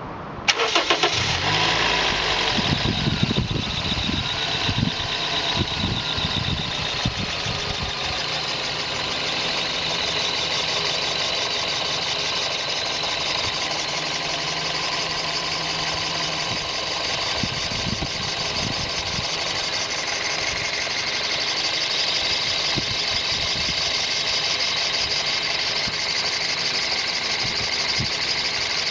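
A high-mileage (220,000 km) 2000 Toyota bB's engine fires up about half a second in and settles into a steady idle, with a steady high-pitched note over the running. The owner suspects an abnormal engine noise.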